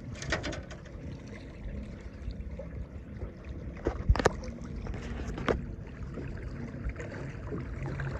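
Steady low rumble of wind and water around a small aluminium jon boat, with a few sharp knocks, the loudest about four seconds in.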